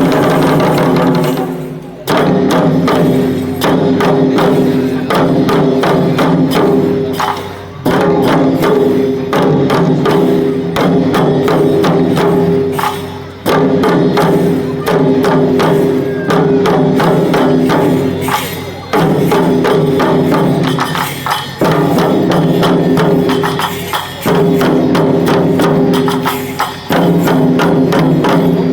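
Japanese lion dance (shishimai) accompaniment: fast, steady drum strokes with a sharp, clacking percussion, over a held low tone that comes in phrases a few seconds long with short breaks between.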